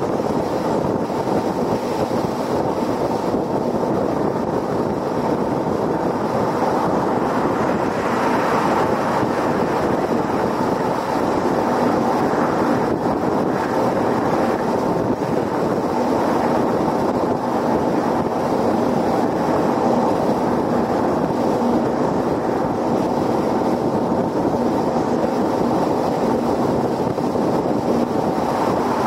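Steady road noise of a car driving at highway speed: tyre rumble on the pavement mixed with wind rushing over the microphone.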